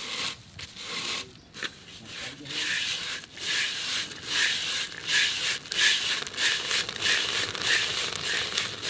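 Rice and hot sand being stirred in an earthenware pot with a bundle of sticks while frying puffed rice (muri): a rhythmic scraping swish, settling into about one and a half strokes a second from about two and a half seconds in.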